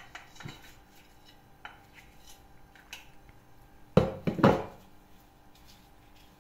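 Kitchenware clinking and scraping as a spoon and glass bowl work against a frying pan while rice is tipped in and stirred, with three loud clanks about four seconds in.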